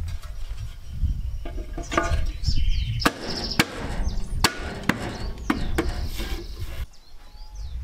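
A chrome hubcap being fitted and knocked into place on a car wheel by hand. About three seconds in come about six sharp metal knocks over three seconds.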